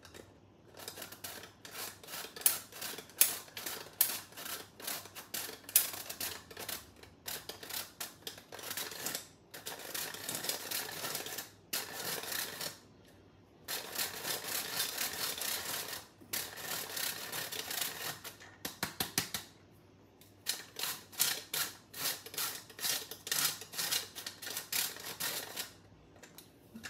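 Hand-cranked metal flour sifter sifting powdered sugar: rapid rasping clicks in runs of a few seconds, broken by short pauses.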